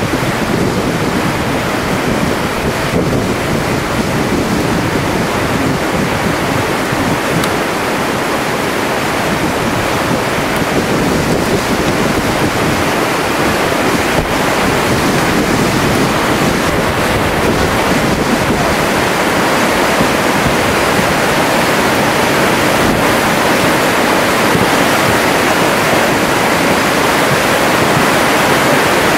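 Flash flood of water, mud and woody debris rushing down a dry wash: a steady rushing noise that grows a little louder toward the end as the flood front advances.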